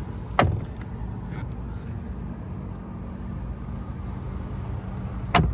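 Power-folding rear seats running: a steady low motor hum, with a sharp clunk about half a second in and another near the end.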